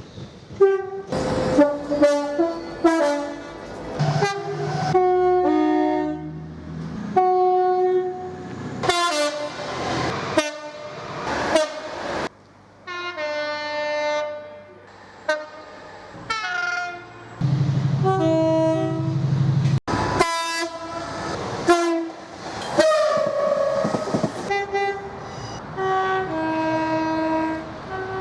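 A quick succession of British train horns, mostly short two-tone blasts, with abrupt cuts from one train to the next.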